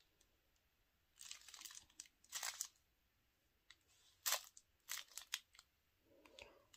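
Small plastic sachets of diamond-painting drills crinkling as they are handled, in two short rustles, followed by a few sharp clicks.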